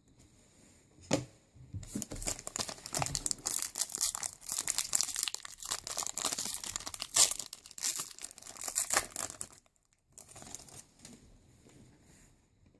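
A trading card pack's wrapper being torn open and crinkled by hand: a sharp click about a second in, then dense crackling for about eight seconds, ending suddenly, followed by fainter rustling.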